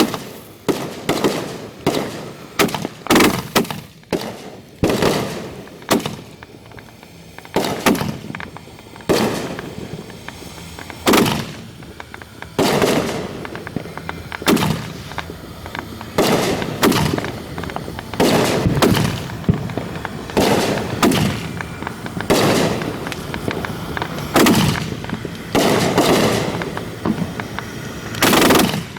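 Aerial fireworks firing and bursting close by at the launch site: a long run of sharp bangs, one to three a second, some bunched into rapid clusters, each leaving a short echoing rumble.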